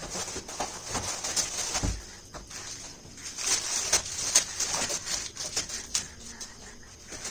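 Plastic wrapping crinkling and rustling while a folding metal cot with its mattress is unwrapped and tipped open, with a dull thump about two seconds in.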